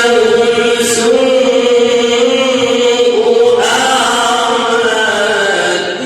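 A man's voice reciting the Quran in a melodic, chanted style, drawing words out into long held notes with slow pitch ornaments. A new, higher phrase begins about three and a half seconds in.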